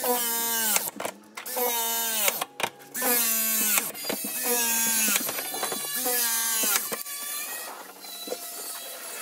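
Background music built on a short sung phrase that repeats about every one and a half seconds. Underneath, a battery pipe-press tool's motor hums steadily for a few seconds as it crimps a fitting.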